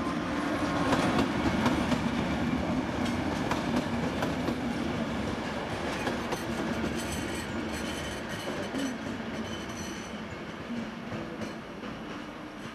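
Short Intercity train hauled by a MÁV class 431 (V43) electric locomotive pulling out of the station, coach wheels rumbling and clicking over rail joints and points, with thin wheel squeal in the middle seconds. The sound slowly fades as the train moves away.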